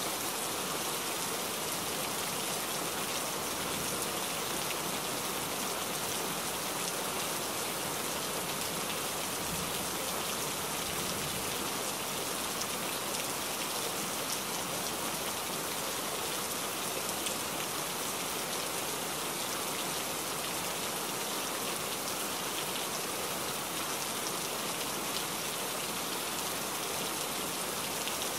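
Steady rain hitting a truck's windshield, heard from inside the moving cab, blended with the even hiss of tyres on the soaked highway.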